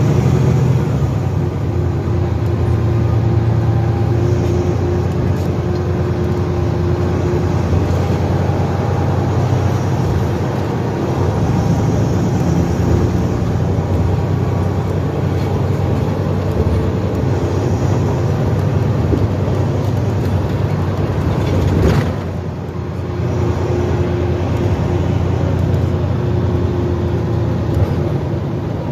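NABI 416.15 transit bus under way: a steady diesel engine drone with road noise, and a faint whine that comes and goes. About three-quarters of the way through there is a sharp click, and the sound briefly drops in level.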